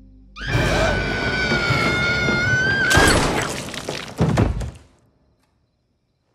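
A woman's long, loud scream, cut off by a gunshot about three seconds in. A second loud impact follows about a second later, with film score underneath.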